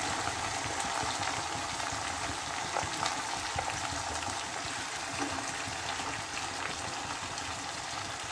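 Potatoes and fresh peas frying in hot oil in a kadhai: a steady sizzle with a few faint clicks.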